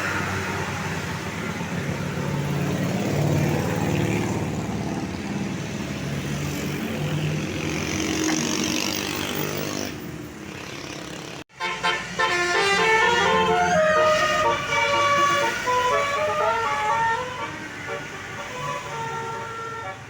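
Bus engines and road traffic running. They cut off abruptly about halfway through, and then a tour bus's 'telolet' multi-tone musical horn of the basuri type plays a stepped, jingle-like melody.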